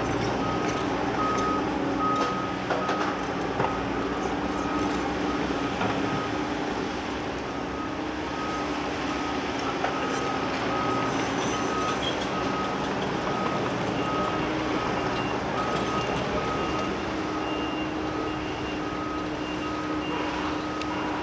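Reversing alarm of a construction machine beeping steadily about once a second over diesel engines running; a second, higher-pitched reversing alarm starts beeping about two-thirds of the way through.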